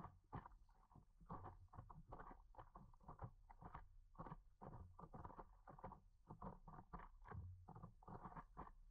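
Faint water slapping and splashing against the hull of a moving stand-up paddleboard, in irregular slaps several times a second.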